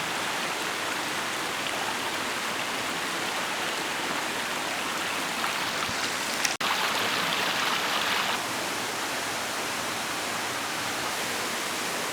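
Steady rush of falling water from a waterfall. About six and a half seconds in there is a short break, and the rush is louder for about two seconds after it.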